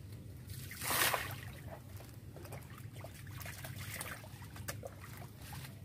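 Water splashing and dribbling as hands work a plastic bag in the river at the bank: one loud splash about a second in, then a run of small splashes, drips and crinkles.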